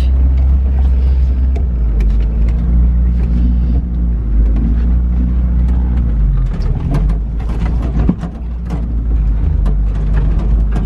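Suzuki Sierra 4x4's engine running steadily in low range while driving over rough paddock. Frequent rattles and knocks from the vehicle over the bumps grow more frequent in the second half.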